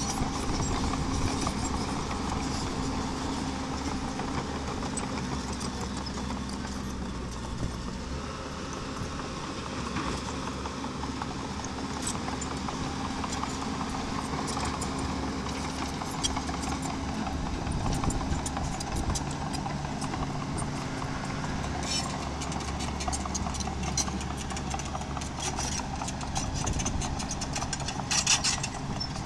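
Miniature crawler dozer's engine running steadily while it works stone, with frequent sharp clacks and clatter over it that grow busiest near the end.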